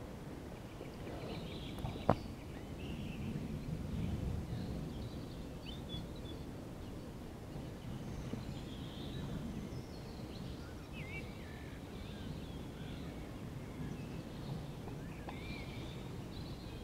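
Outdoor background ambience: a steady low rumble with scattered bird chirps and a single sharp click about two seconds in.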